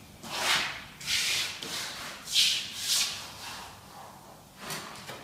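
Palms sliding and rubbing a pasted vinyl wallpaper strip along the wall, nudging it edge to edge against the previous strip: a series of about five short papery swishes.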